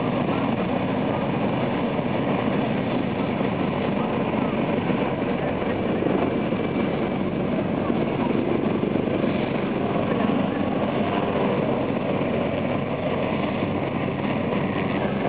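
Helicopter flying at a distance: steady rotor and engine noise.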